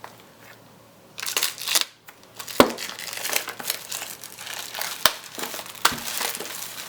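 Packaging being opened by hand, crinkling and rustling in irregular bursts after about a second of quiet, with a few sharp clicks or taps.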